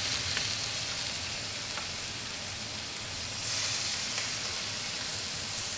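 Seasoned chicken pieces sizzling steadily in hot oil in a stainless steel sauté pan. The sizzle swells a little past halfway, with a few light clicks.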